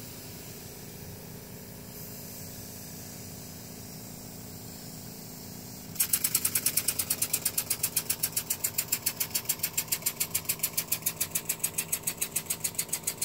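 A steady low mechanical hum, then about six seconds in the model's compressed-air system starts up once its valve is opened: sharp, evenly spaced puffs of hissing air, about seven a second, that keep going.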